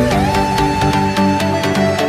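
Electronic background music with a steady beat and held synth notes, one of which slides up in pitch right at the start.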